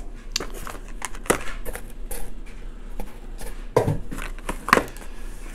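Handling of a cardboard product box and a paper slip: scattered clicks, taps and light rustles, with a few sharper knocks in the second half.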